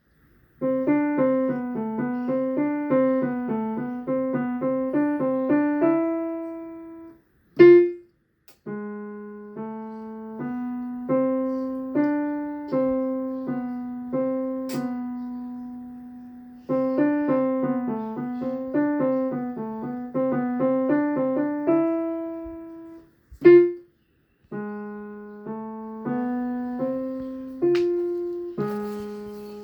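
Solo piano played by a student: a simple melody of single notes in repeating phrases, each ending on a held note, with brief pauses between phrases.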